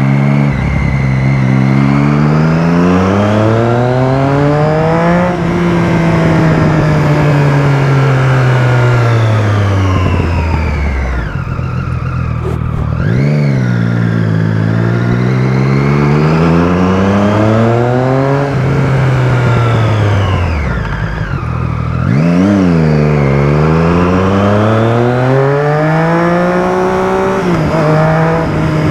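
Motorcycle engine accelerating through the gears while riding: its pitch climbs and drops back at each upshift, falls away as the bike slows about ten seconds in, then climbs through the gears again twice more.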